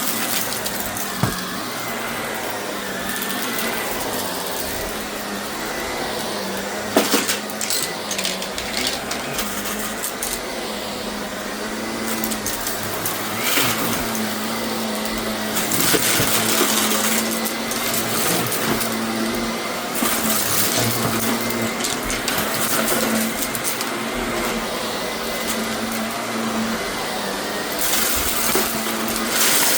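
Shark vacuum cleaner running steadily, its motor holding one even hum under a rush of airflow, with scattered sharp clicks and rattles and a few louder surges.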